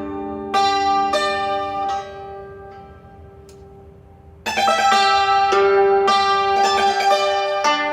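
Solo Chinese zither-type string instrument playing a Cantonese tune. A few ringing notes die away into a quiet pause, then a fast, dense run of notes comes in a little past halfway.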